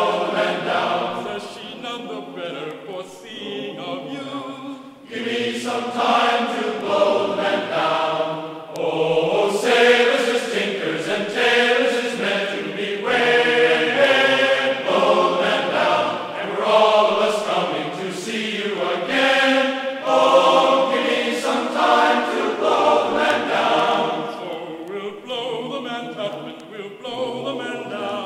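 Background music of a choir singing.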